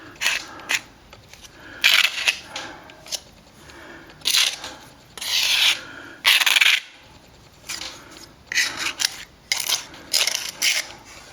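A small plastering tool scraping and rubbing cornice cement into a gap around a plaster vent, in a string of short, irregular strokes.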